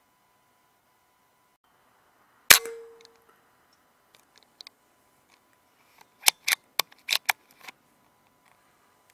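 A single sharp rifle shot with a short ringing tail. It is followed about three and a half seconds later by a quick run of sharp clicks.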